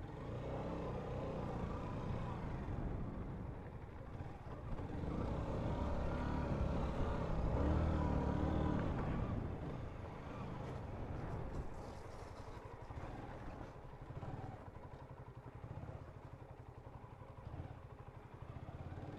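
Honda CBR125's small single-cylinder four-stroke engine running at low speed. It rises in revs and loudness from about four seconds in, then drops back to a lower, steadier note for the rest of the time.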